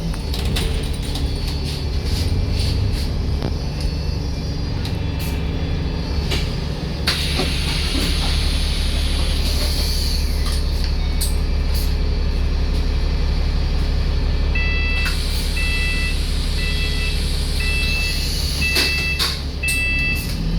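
KMB bus engine idling steadily, with a rush of compressed-air hiss about a third of the way in. Near the end a door warning beeper sounds a string of short high beeps about once a second as the doors close.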